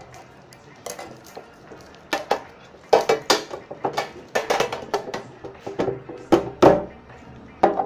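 Handling noise: an irregular run of sharp clicks and clinks, getting busier from about two seconds in, with the loudest knocks near the middle and shortly before the end.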